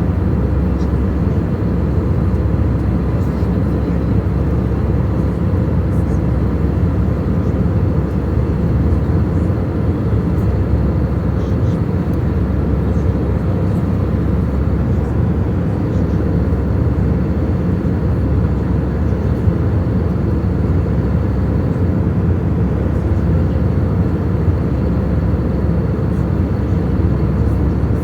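Passenger airliner's cabin noise heard from inside the cabin: a steady, even, low-pitched noise of engines and airflow that does not change.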